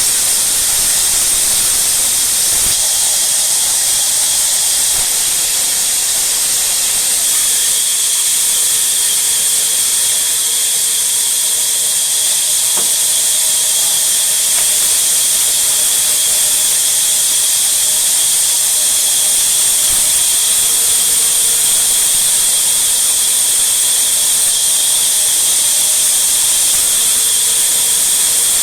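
Sawmill saw running steadily, a loud continuous hiss with a high, unchanging whine and no pauses.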